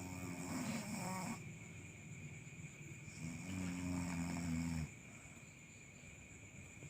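A sleeping domestic cat snoring: two long snores, one at the start and one about three seconds in, each lasting about a second and a half.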